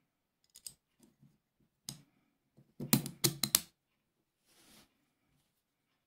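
Small steel parts of a miquelet flintlock lock clicking against each other as they are handled and fitted together by hand: a few scattered light clicks, then a quick cluster of sharper metal clicks about three seconds in, and a soft rustle near the end.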